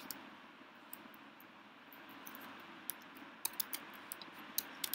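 Typing on a computer keyboard: scattered light key clicks, a few in the first second and a quicker run in the second half, over a steady faint hiss.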